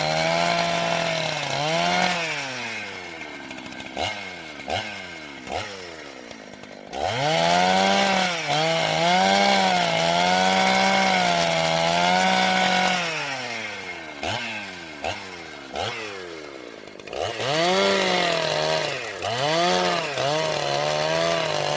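Gasoline chainsaw engine revving high with a slightly wavering pitch, then dropping back toward idle with three quick throttle blips, and revving up again; the cycle happens twice.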